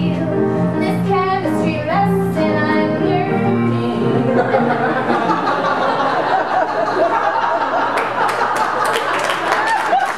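A woman singing held notes of a show tune over accompaniment, giving way about four seconds in to audience laughter, with clapping joining near the end.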